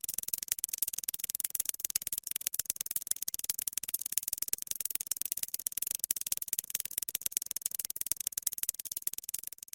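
Close-up ant sound: a dense, fast, irregular high-pitched crackle of tiny clicks and scratches, the small movements of ants at work.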